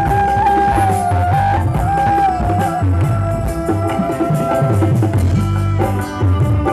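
A live dangdut band plays an instrumental passage led by a transverse flute, with long held notes that bend and slide, over drums, bass guitar and keyboard. The flute line drops out about two-thirds of the way through while the band keeps playing.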